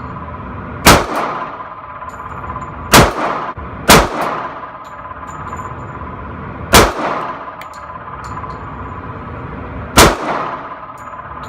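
Five single pistol shots from a .45 handgun, unevenly spaced, each with a short ringing echo, with faint high clinks between them.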